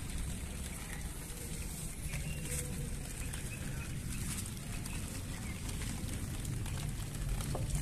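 Chickens in a coop clucking faintly over a steady low rumble.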